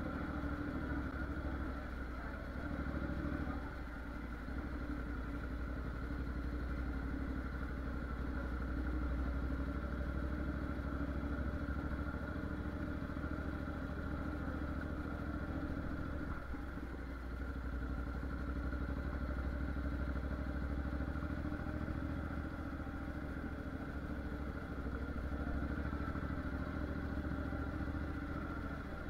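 Honda NC750X parallel-twin engine running steadily at low speed, heard from on board the moving motorcycle, with a low, continuous rumble.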